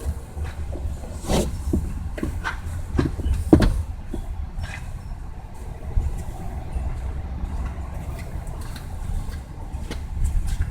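2005 Kia Optima's engine running steadily after a fuel pump replacement, showing that the new pump is delivering fuel. Several short clicks and knocks sound over it in the first few seconds.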